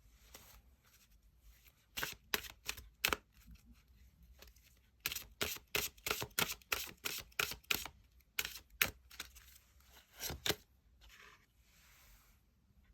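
Tarot cards being handled on a table: a series of sharp clicks and taps, a few at first and then a quick run of about a dozen, followed by soft rubbing of cards near the end.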